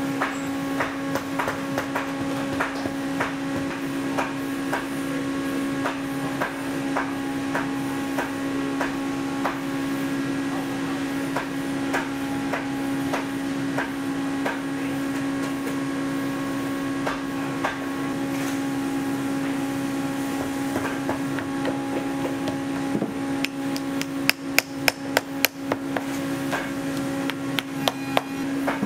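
Hammer tapping again and again, with a quick run of about eight loud blows a few seconds before the end, over a steady hum.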